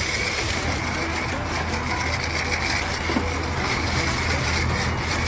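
Car-wash high-pressure wand spraying water over a steady pump hum, with a constant whine and a hiss that flickers as the spray moves.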